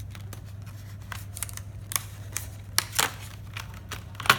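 Hard plastic memory card case being handled, giving a string of sharp clicks and knocks, the loudest near the end, over a steady low electrical hum.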